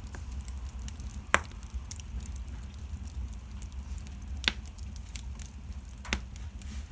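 Wood fire in an open fireplace crackling: a steady run of small crackles over a low rumble, with three louder pops, about a second in, about four and a half seconds in, and near the end.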